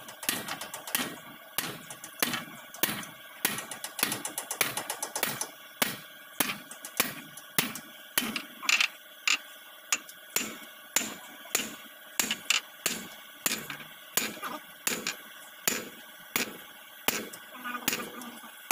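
Hammer driving a steel kingpin down through a truck's front-axle steering knuckle: repeated sharp metal-on-metal blows, about two a second.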